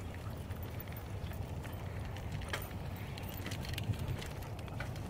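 Mountain bike rolling along a dirt trail: a steady low rumble of tyres and riding, with a few faint clicks and rattles.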